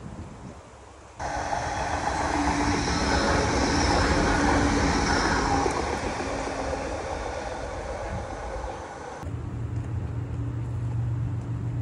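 Melbourne E-class tram passing on its tracks, a steady whine over its running noise. It cuts in sharply about a second in and stops abruptly near nine seconds, followed by a lower steady hum.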